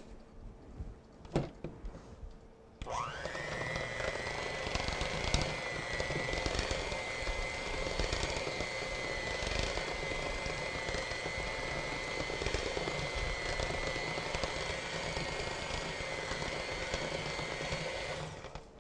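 A few soft knocks, then about three seconds in an electric hand mixer switches on, its whine rising quickly and settling into a steady run as the beaters mix chocolate frosting in a bowl. It stops near the end.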